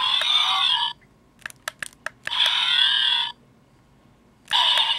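Tron Legacy deluxe identity disc toy's small speaker playing its electronic sound effect three times in Try Me mode, each about a second of warbling, sweeping tones, with short clicks between.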